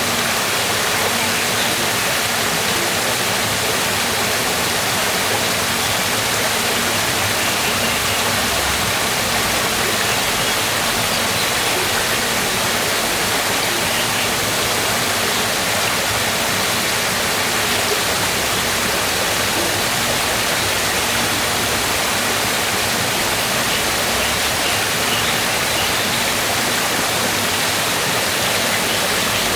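Waterfall: water falling and rushing in a loud, steady, unbroken wash of noise.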